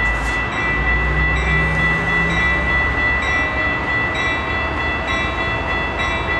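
Metrolink diesel locomotive approaching, a low, steady engine rumble that is stronger in the first couple of seconds. Over it runs a thin, steady high-pitched ringing tone.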